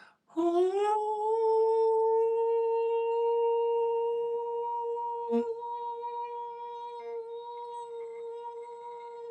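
A man's voice toning one long, high, wordless note: it slides up into the pitch at the start, then holds it steady and slowly fades. A brief click about five seconds in.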